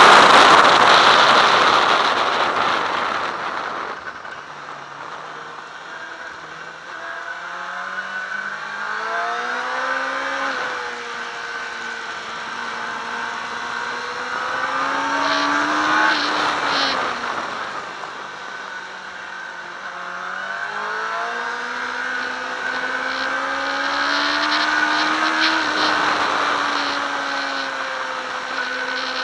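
Sport motorcycle engine heard from on board on a racetrack, its pitch climbing in steps through the gears and falling back on deceleration for the corners several times over. Heavy wind rush on the microphone at first, easing about four seconds in.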